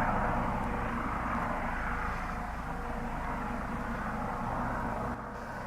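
Helicopter rotor and turbine engine running steadily, slowly getting quieter.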